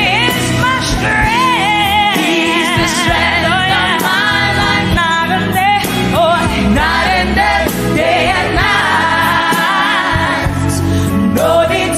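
Gospel choir song: a female lead singer sings with wavering, bending runs and vibrato over the choir.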